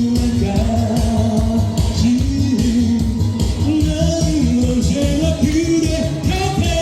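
A singer's voice over backing music with a steady bass beat.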